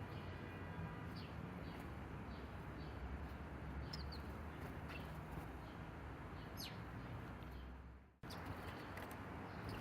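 Small birds giving short, scattered chirps over steady outdoor background hiss. The sound drops out for a moment just after eight seconds, then resumes.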